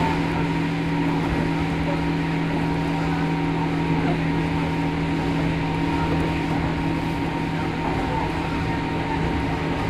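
Running sound inside a JR Kyushu 103 series 1500 subseries motor car: the MT55 traction motors and gearing whine at a steady pitch over the rumble of wheels on track, the train running at constant speed.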